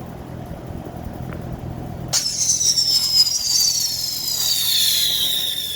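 A whistling firework: about two seconds in, a sudden loud start of one long, high whistle that slides slowly down in pitch for several seconds, over a low steady rumble.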